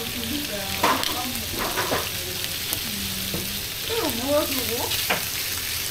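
Skewered swordtip squid sizzling on a hot griddle pan, a steady frying hiss. A few sharp knocks come as pieces are moved on the plate.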